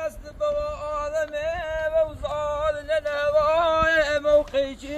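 A man singing a melody in a high voice: long held notes with a wavering pitch, broken by short pauses between phrases.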